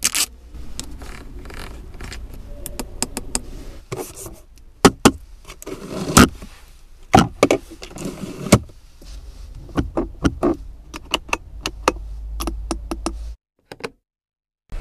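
Clicks and knocks of a hand working a Chery Arrizo 8's interior controls: the rotary console knob, the cupholder and the centre-console storage lid, over a low steady hum. The sound cuts out for about a second near the end.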